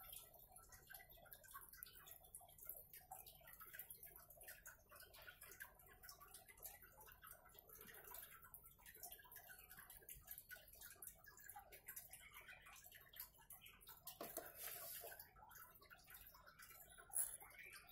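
Near silence with faint, irregular ticks and clicks, one sharper click near the end.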